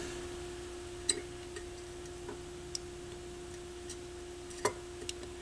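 Soldering at a turntable's jack terminals: a few faint light clicks and taps of the soldering iron and wire against the metal, over a steady faint tone.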